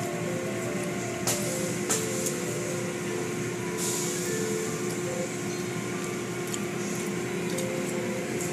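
Automatic car wash spraying and sheeting water over the car's windshield, heard from inside the car: a steady rush of spray over a constant machine hum, with a few splashes early on and a heavier gush about four seconds in.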